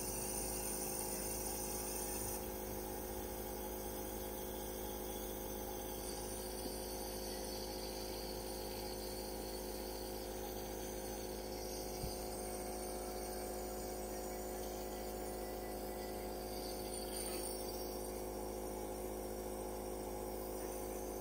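Compressor nebulizer running steadily, its small motor giving an even, multi-toned hum that does not change.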